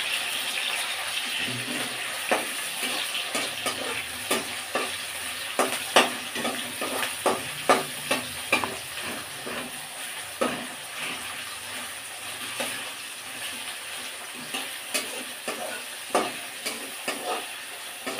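Sliced onion, tomato and green chilli sizzling in hot oil in a kadhai while being stirred, the utensil knocking and scraping on the pan in quick irregular clicks.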